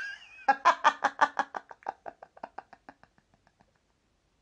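A person laughing: a high, wavering squeal, then a long run of quick rhythmic laughs, about six a second, fading out over about three seconds.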